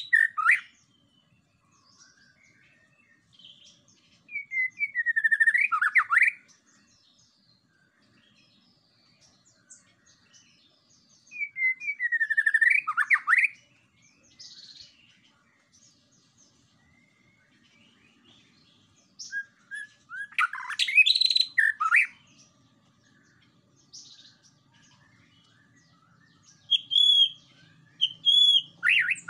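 White-rumped shama (murai batu) singing: loud, rich whistled phrases of sweeping notes, one every six to eight seconds, with short pauses between them.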